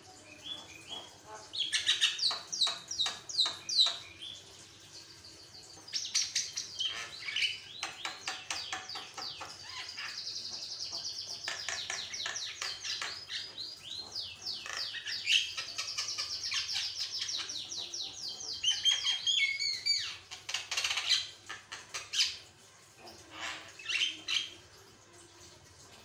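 Javan myna singing hard: fast, varied strings of high whistles and chattering notes, in bursts with short pauses and one long unbroken run through the middle.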